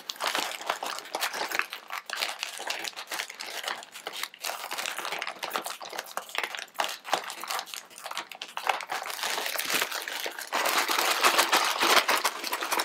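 A plastic packet of Ppushu Ppushu dry ramen-style noodle snack being crushed by hand: a dense crinkling of the wrapper with the dry noodle block crunching and crackling inside. It grows louder and more continuous about ten seconds in.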